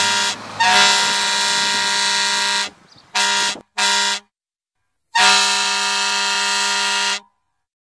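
Truck air horn sounding a pattern of blasts: one long blast, two short ones, then another long one.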